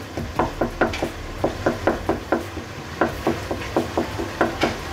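Wooden spatula knocking against a karahi, about four quick knocks a second, as it stirs the simmering keema and breaks up the soft tomatoes.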